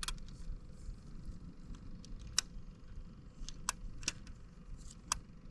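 About ten sharp, irregular clicks and ticks, a second or so apart, over a low steady rumble.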